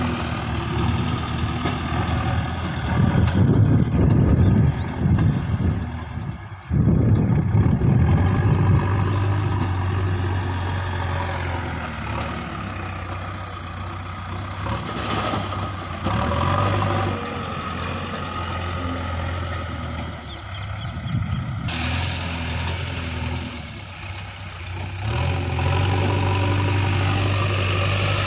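JCB 3DX backhoe loader's diesel engine running as the front loader works soil, louder and rougher under load for a few seconds in the first third and settling to a steadier running note later.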